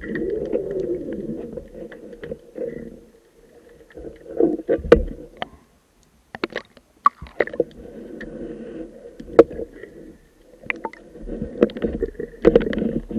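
Underwater sound of a hookah diver breathing on a surface-supplied air hose: muffled rumbling swells of exhaled air bubbles every few seconds, with scattered sharp clicks and knocks.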